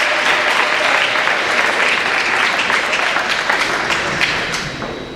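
A large crowd clapping in a gym, dense and loud, dying down near the end.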